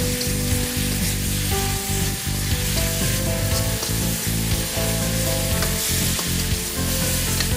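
Pork and green chilli sizzling hard in a hot wok, with a metal spatula stirring and scraping through them.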